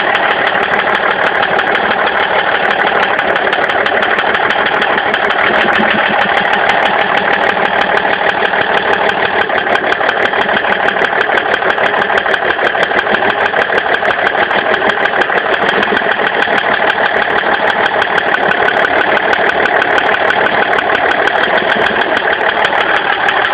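BMW 530d straight-six turbodiesel running steadily with a rapid, even knock. The knock comes from a worn connecting-rod bearing shell on the fourth cylinder.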